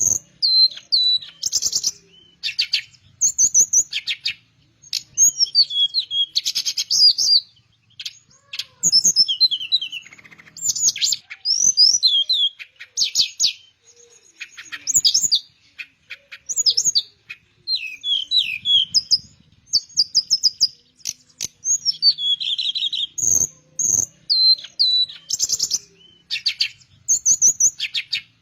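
Teledekan, a blue flycatcher, singing steadily: quick, varied phrases of whistled slides and fast trills, one after another with short pauses between them.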